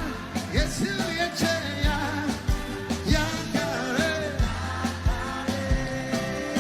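Church worship music: a singer's melody over a band with a steady drum beat and bass.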